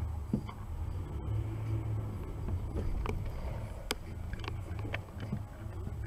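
Steady low rumble of a car's engine and tyres, heard from inside the cabin through a windshield dashcam, with a few short clicks scattered through it.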